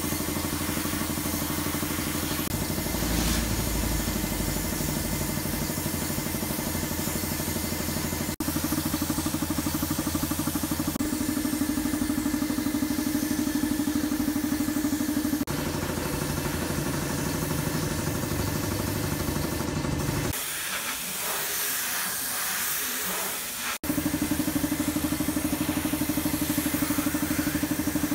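Air-powered gravity-feed paint spray gun hissing as it sprays, over the steady hum of an air compressor motor. The sound changes abruptly a few times, and for a few seconds past the middle the hum drops out, leaving only the hiss.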